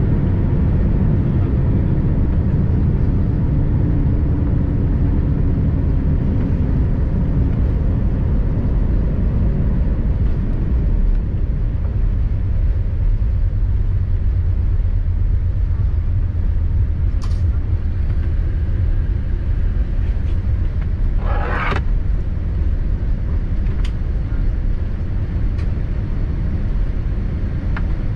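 Cabin noise of a Boeing 787-9 rolling on the ground after landing: a steady low rumble of the wheels and engines. The rumble thins out about ten seconds in. A few light clicks and one short rattle come about two-thirds of the way through.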